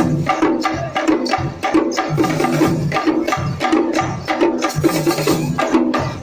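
Tamil folk drumming: parai frame drums struck with sticks by the dancers, with a barrel drum, beating a fast, dense, steady rhythm of sharp strokes.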